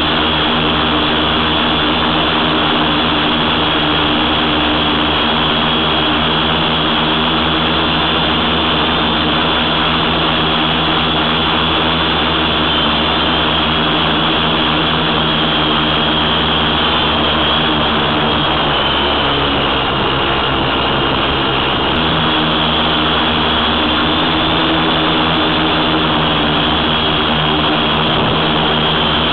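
Tricopter's electric motors and propellers running in flight: a loud, steady multi-tone hum over a constant rush of air, the pitch shifting slightly as the throttle changes.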